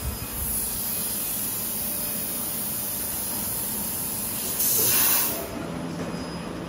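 Steady running noise of automatic sheet-metal line machinery, with one loud, sharp hiss lasting under a second about four and a half seconds in.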